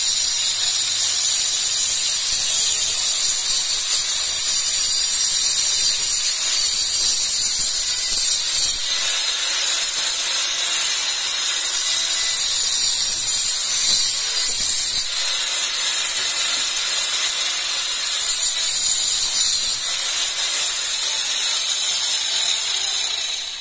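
Angle grinder fitted with an Ingco TSB111555 115 mm, 40-tooth TCT wood saw blade, running at speed and cutting through a wooden board: a steady, high-pitched whine with a hiss.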